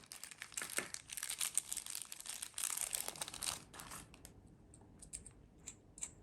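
Packaging crinkling and rustling as it is handled and opened to get a small tool out, followed by a few light clicks near the end.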